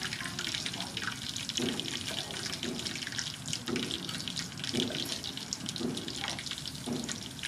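Cleaver chopping through limes onto a wooden chopping board, a short knock about once a second, over a steady rush of running water.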